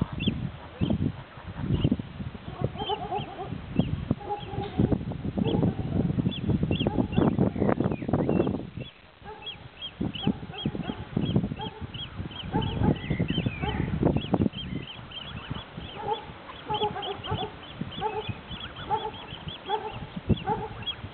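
A flock of white domestic geese honking, many short calls overlapping in a steady chatter. Gusts of wind rumble on the microphone underneath and drop away briefly near the middle.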